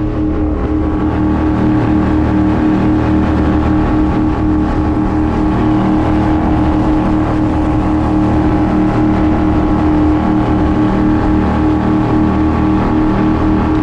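Speedboat engine running flat out at about 66 mph, a steady drone that holds the same pitch throughout, over a rush of wind and water.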